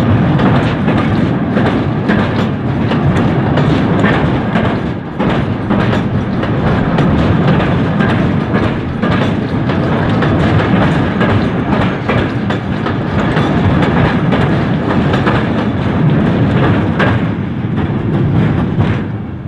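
Rake of vintage Great Western Railway coaches rolling past close by, their wheels and bogies clattering in a dense, steady clickety-clack.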